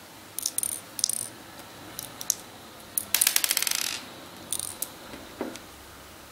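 Plastic airsoft BBs clicking one at a time into the CO2 magazine of a gas-blowback airsoft pistol as they are pushed past the feed lips. About halfway there is a quick run of rattling clicks lasting under a second.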